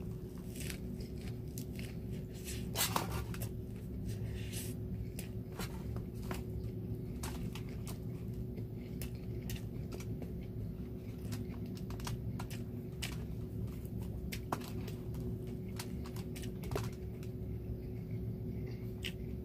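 A person chewing a mouthful of lettuce-wrapped food close to the microphone: scattered wet mouth clicks and smacks throughout, over a steady low hum.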